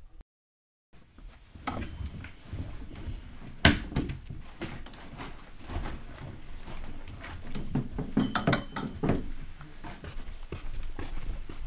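Students packing up and leaving a classroom: books and bags thudding onto desks, handling and shuffling noises and footsteps, as a run of irregular knocks with the sharpest about three and a half seconds in. It opens with a moment of dead silence.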